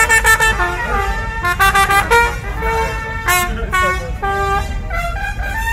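Marching band brass horns playing a riff of short, punchy notes that jump between pitches.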